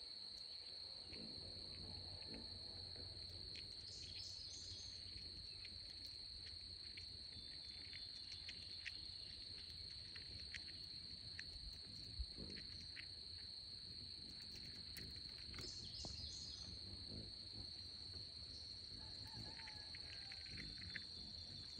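Steady, high-pitched insect trill, faint, with scattered small clicks as a chipmunk picks through and nibbles sunflower seeds in a hand.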